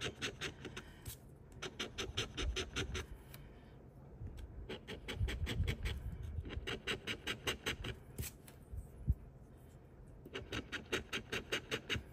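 A coin scraping the coating off a scratch-off lottery ticket in quick back-and-forth strokes, several a second, coming in runs with short pauses between them.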